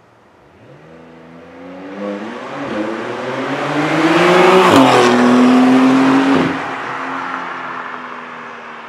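Porsche 911's flat-six engine through an Akrapovic titanium slip-on exhaust in Sport Plus mode, accelerating past in a drive-by. The engine note rises and grows louder as the car approaches, drops in pitch as it passes about halfway through, then fades away.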